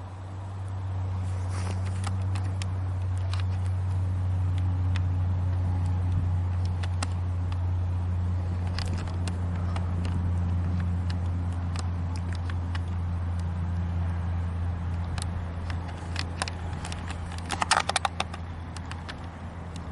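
Aircraft engines running with a steady low drone that builds over the first couple of seconds and then holds. Scattered clicks and crackles come over it, most densely near the end.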